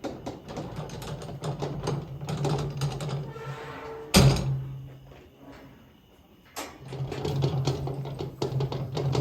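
A single loud gunshot about four seconds in, with a brief echo, which she takes for a neighbor test-firing a firearm. A steady low hum runs underneath.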